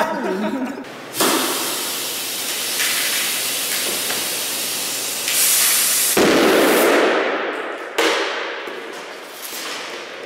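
Compressed air from an air-compressor hose hissing steadily into a plastic bottle, starting about a second in. About six seconds in there is a loud blast as the pressurised bottle bursts, and a second sharp bang about two seconds later that dies away.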